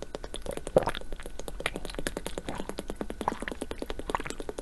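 Water bubbling: a dense, irregular stream of small pops, as of air bubbles rushing through water.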